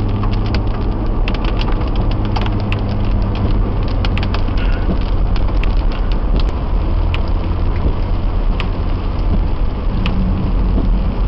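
Inside a car driving in heavy rain: a steady low drone of engine and road noise, with raindrops ticking sharply and irregularly on the windshield and roof.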